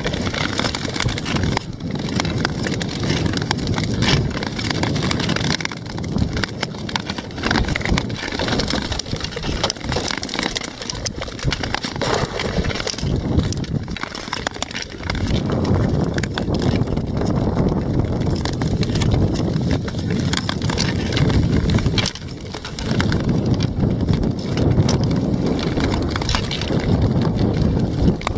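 Ice skates gliding and scraping over clear black lake ice, a steady rushing noise with frequent short sharp clicks, overlaid by wind on the microphone.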